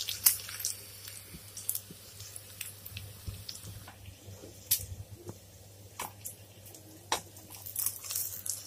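Chicken pieces deep-frying in hot oil in a kadai: a faint sizzle broken by scattered sharp crackles and pops, over a steady low hum. The crackling thickens near the end.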